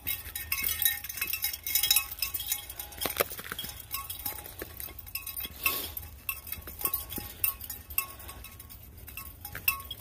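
Footsteps crunching and rustling through dry fallen leaves on a rocky trail, in an irregular walking rhythm. Light metallic clinking is mixed in.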